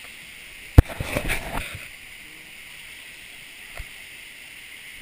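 A sharp knock against the camera a little under a second in, then a second or so of splashing and gurgling water, settling into a faint steady hiss with one small click.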